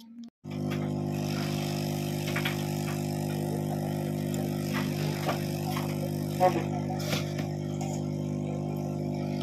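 Steady electrical hum from a speaker fed by a DTH set-top-box board: a constant drone of many stacked tones that starts suddenly about half a second in, with a few faint clicks over it.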